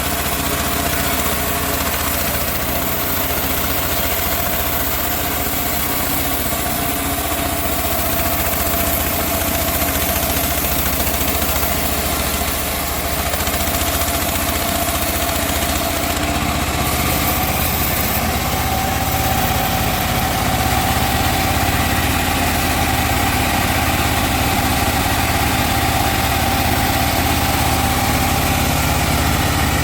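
Engine-driven sawmill running steadily, with a whining tone that rises a little in pitch about two-thirds of the way through.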